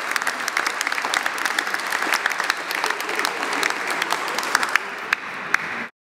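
Seated audience applauding, with dense clapping that thins out near the end and then cuts off suddenly.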